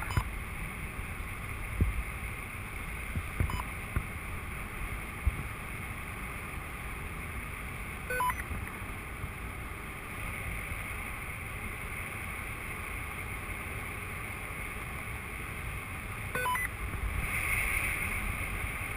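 Steady rush of airflow over the camera microphone of a paraglider in flight, with a few low buffeting thumps in the first five seconds.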